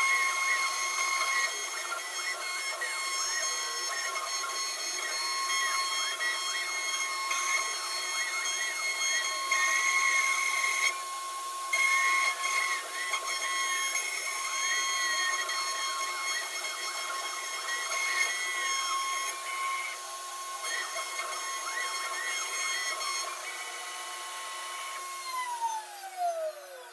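CNC router spindle whining at a steady high pitch while its bit carves a wooden board, with wavering cutting noise as the tool moves through the cut. Near the end the whine falls in pitch as the spindle spins down.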